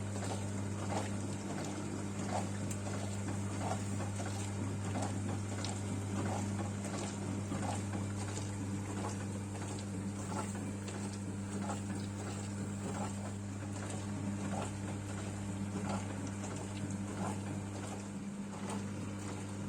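Midea dishwasher running its wash cycle: a steady pump motor hum, with water from the rotating spray arm pattering against the dishes and tub in a fine irregular spatter.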